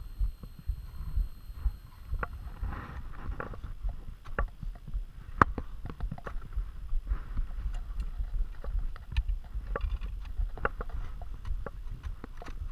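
Wind rumbling on the camera microphone, with irregular sharp clicks and scrapes from a climber's metal gear: crampons and an ice axe on granite and snow. The loudest click comes about five seconds in.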